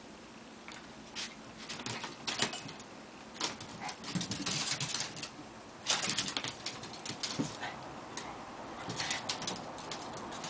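Two Maltese dogs play-wrestling on a hardwood floor: their claws click and scrabble on the boards in irregular bursts, busiest in the middle, with soft little dog noises among them.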